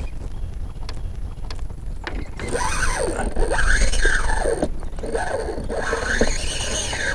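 Fishing reel's drag giving line as a hooked big redfish runs, in surges that rise and fall in pitch, strongest from about two and a half seconds in.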